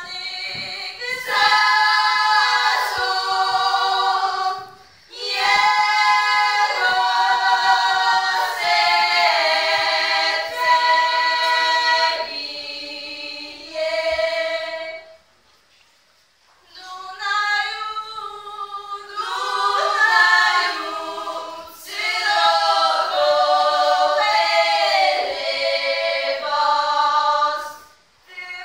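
Unaccompanied women's vocal group singing a Polish highlander (Górale) folk song in several voices. It comes in long phrases, with a brief break about five seconds in and a longer pause midway.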